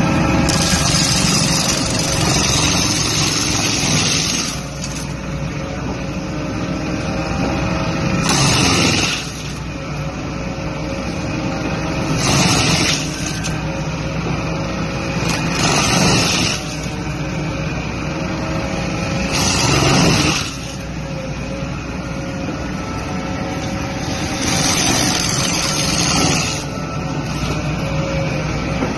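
An excavator-mounted mulcher running steadily with its engine humming. Every few seconds comes a louder rushing, grinding burst as the mulcher head chews into palm tree.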